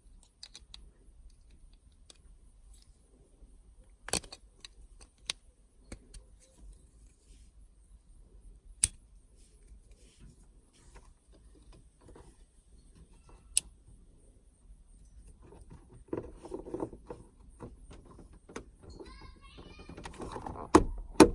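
Handling noise from small plastic parts as a replacement truck power outlet is fitted and pushed into place, with a few single sharp clicks spaced seconds apart. Denser rustling and fumbling follow near the end.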